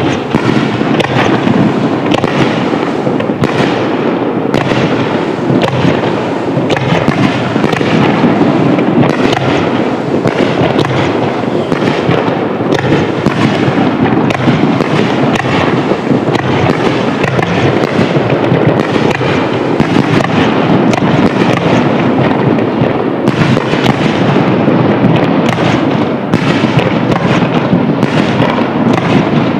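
Fireworks display: a continuous barrage of aerial shell bursts, rapid overlapping bangs with no pause between them.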